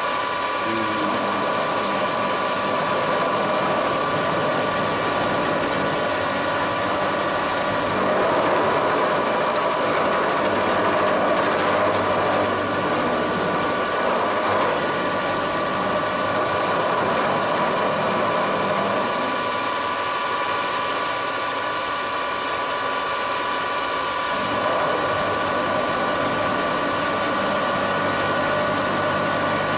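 Hafco HM 54GV milling machine running, its end mill cutting along the edge of an aluminium block. A steady whine with several high tones, under a rougher cutting noise that swells and eases about a third of the way in.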